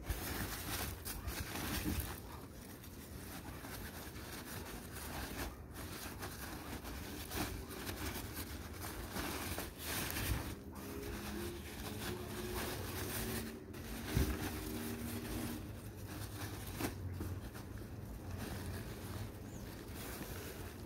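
Crumpled packing paper rustling and crinkling as a hand rummages through it in a cardboard box, with a continuous crackle and sharper crunches now and then.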